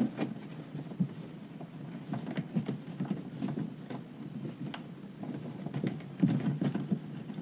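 Hands fitting a through-hull wiring grommet and its plastic parts into a hole in a plastic kayak hull: irregular small clicks, taps and scrapes, with a busier cluster near the end as the part is pressed home.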